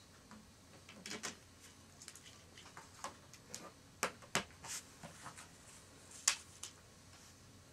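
Irregular light clicks and taps, scattered through a quiet room, the sharpest about six seconds in.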